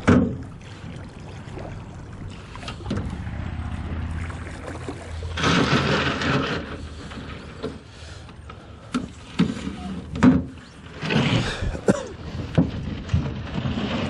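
Aluminum solo canoe being run ashore: a splash as a fish goes back into the water at the start, then scraping bursts of the hull on gravel and hollow knocks of the paddle and gear against the aluminum, with water sloshing as a foot steps out into the shallows near the end.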